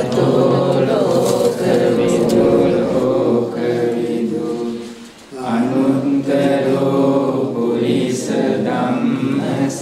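A group of voices chanting in unison on long held notes, typical of Buddhist devotional chanting, breaking off briefly about halfway through before carrying on.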